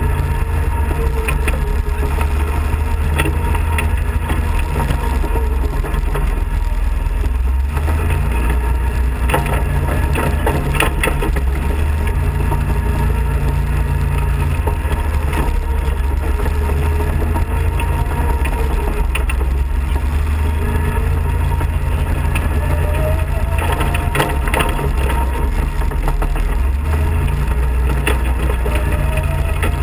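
Off-road kart's engine running as it drives over a rough gravel road, with heavy low rumble and gravel crunching and knocking under the tyres. The engine note climbs about three-quarters of the way through.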